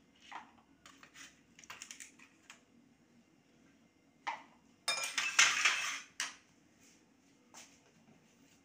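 Ice cubes dropped by hand into a stainless-steel mixer-grinder jar of blended milk and banana, clinking against the metal a few at a time. A quick run of clatter about five seconds in is the loudest part.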